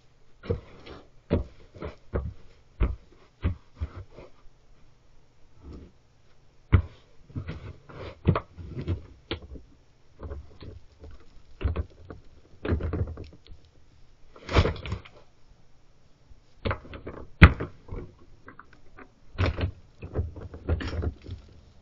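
A black bear knocking and shoving a large slatted wooden box around: a string of irregular wooden knocks and thuds with some scraping. The sharpest thud comes about seventeen seconds in.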